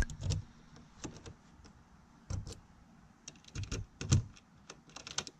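A key going into a new RV entry door lock and being turned, with a series of small clicks and knocks in bursts as the door handle and deadbolt lock.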